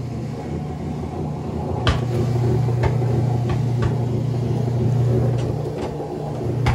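Whirlpool direct-drive top-load washing machine running with a steady low motor hum, which weakens for about the first two seconds and then returns, and a few light clicks and knocks.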